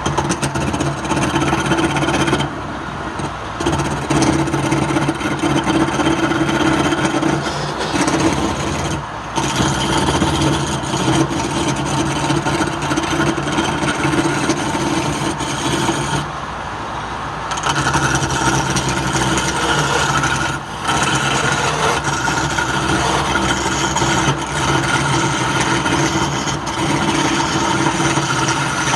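Wood lathe motor running with a steady hum while a tool scrapes the spinning wood, the scraping lifting off briefly a few times and coming back.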